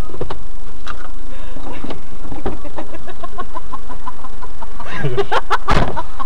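A man laughing in a run of short, quick bursts, about four a second, breaking into a louder outburst near the end.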